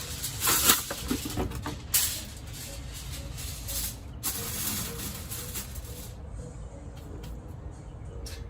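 Sheet of aluminum foil crinkling and rustling as it is handled and laid into the grill, in a few bursts over the first six seconds, with a steady low rumble underneath.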